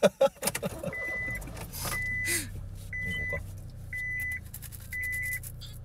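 A car's warning chime beeping about once a second, a steady high tone each time, over the low steady hum of the car.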